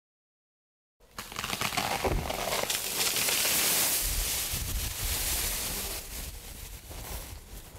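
Loud crackling and rustling of leafy branches and leaves, starting abruptly about a second in, strongest in the middle and dying away near the end.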